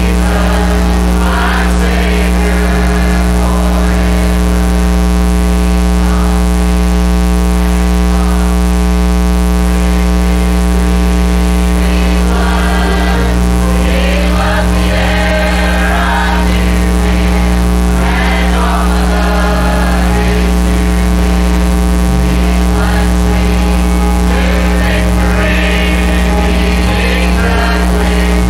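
Church choir singing a gospel hymn, over a loud, steady electrical mains hum.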